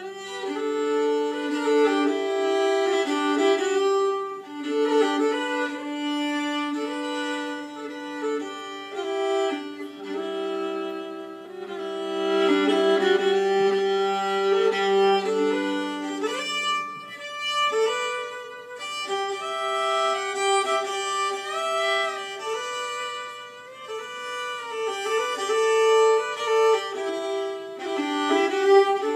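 Solo fiddle tune bowed on a carbon-fibre violin, an early prototype Gayford Carbon Strad, with a low drone note sustained under the melody for several seconds in the middle.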